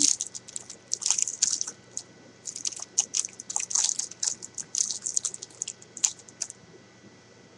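Wrapper of a 2011 Panini Absolute football card pack being torn open and crinkled by hand: a rapid run of sharp crackles that stops about six and a half seconds in.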